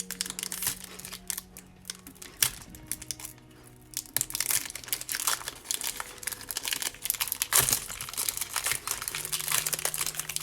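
Pokémon booster pack's foil wrapper crinkling as it is handled and torn open, with rapid, irregular crackles throughout. Soft background music underneath.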